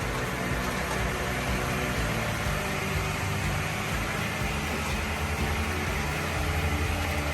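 A motor-driven machine running steadily, an even engine drone with a rushing noise over it.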